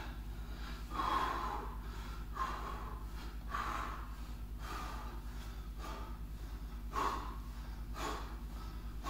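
A man breathing hard from exertion in an interval workout, with sharp exhalations about once a second. A steady low hum runs underneath.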